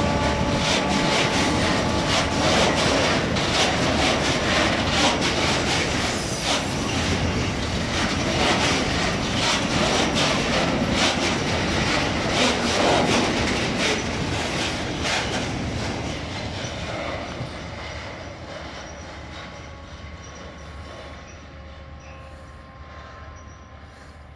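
Fuel tank wagons of a freight train rolling past close by, their wheels clacking over the rail joints. The sound fades over the last several seconds as the train pulls away.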